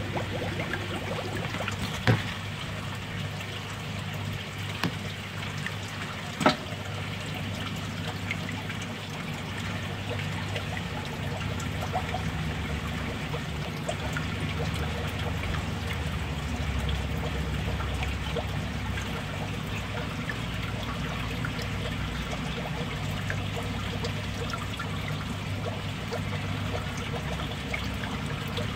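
Water trickling steadily into a crab fattening tub from a PVC pipe outlet, over a low steady hum. Two sharp clicks stand out, about two and six seconds in.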